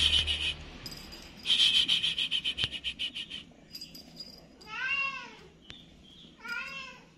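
A colorpoint Munchkin kitten meows twice in the second half, each meow short and rising then falling in pitch. Earlier comes a fast rattle of about ten clicks a second, lasting about two seconds.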